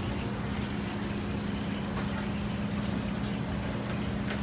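Steady low mechanical hum with one constant droning tone, from the food court's running machinery, with a few faint clicks.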